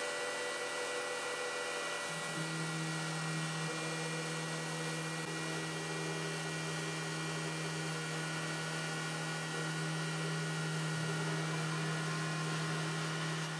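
CNC router spindle running steadily while its knurled, fluteless ceramic/glass-cutting bit grinds through a carbon fiber sheet. The sound is a steady machine hum with a few fixed tones, and a stronger low hum joins about two seconds in and holds.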